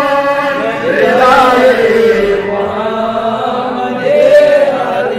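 A man chanting a slow, melodic Islamic recitation, holding long notes that waver in pitch.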